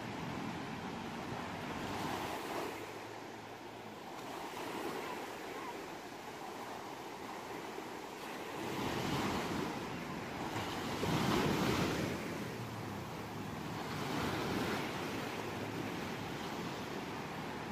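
Ocean waves breaking and washing ashore: a steady rush of surf that swells and fades in several surges, the loudest a little past the middle.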